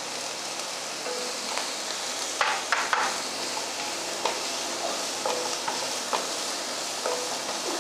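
Chopped vegetables sautéing in butter in a frying pan: a steady sizzle while a wooden spatula stirs them, with a few short knocks of the spatula against the pan around the middle.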